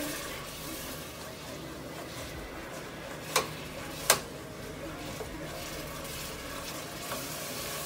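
Red spatula stirring spaghetti sauce in a pot, a low steady scraping and simmer, with two sharp clicks a little over three seconds in and again just after four seconds, the spatula knocking against the pot.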